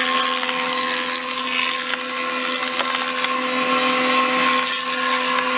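Cast-iron jointer running steadily, its cutterhead planing a rough old pine board, with a constant whine over the noise of the cut.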